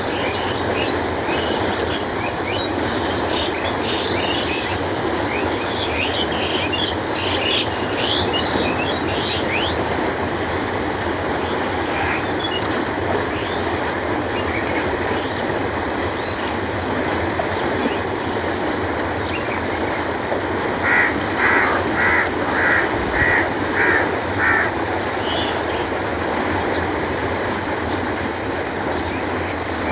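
Steady rush of flowing canal water. Small birds chirp over it in the first ten seconds, and a bird calls about seven times in quick succession about two-thirds of the way in.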